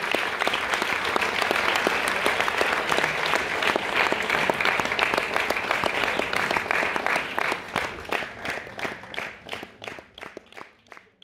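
A crowd applauding, the clapping thinning out over the last few seconds into scattered single claps that die away.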